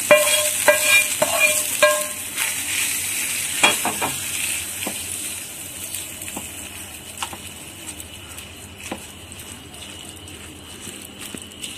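A spoon knocks about four times in the first two seconds against a metal pan as hot fried tempering is scraped out, each knock ringing. A sizzling hiss comes as the hot oil and spices hit the curd rice and fades within a few seconds. Then comes soft stirring of the curd rice, with an occasional clink against the steel bowl.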